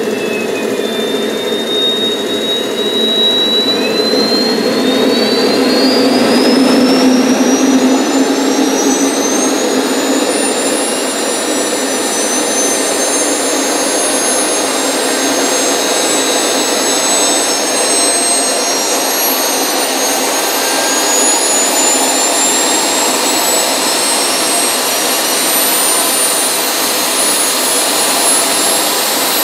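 Twin Jet Central Super Eagle model turbine engines running, their high whine rising steadily as they spool up over about twenty seconds, then holding high over a steady roar.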